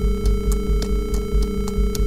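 Synthesized brainwave-entrainment tones: a steady drone of held pitches near 221 and 442 Hz over a pulsing bass, with soft clicks repeating about four times a second, in step with the track's 3.84 Hz pulse.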